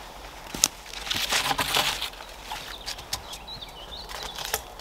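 Boots crunching and rustling through dry leaf litter and twigs on the forest floor, with a sharp crack a little over half a second in and wooden knocks near the end as a cut pole is lifted onto upright stakes. A small bird chirps briefly near the end.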